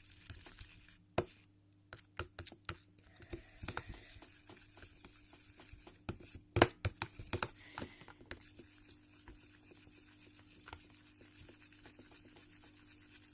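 A metal spoon stirring a thick soap-and-salt mixture in a small pot, giving irregular clicks, knocks and scrapes against the pot. They come thickest near the start and again about six seconds in, then thin out to light ticks.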